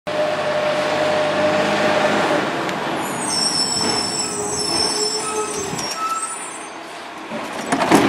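Heil Python automated side-loader garbage truck's diesel engine running as it drives up and slows to a stop, with a high-pitched squeal from about three seconds in. A short, loud burst comes near the end.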